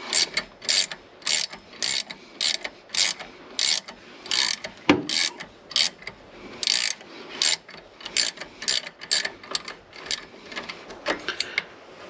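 Ratcheting wrench clicking in short bursts, about two a second, as it turns the 17 mm bolt of a three-jaw puller drawing the timing gear off a small-block Chevy crankshaft. There is a brief pause, and one sharper knock about five seconds in.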